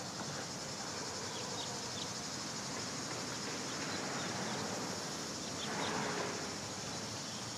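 Steady outdoor garden ambience: a continuous high insect drone over a soft even hiss, swelling slightly about six seconds in.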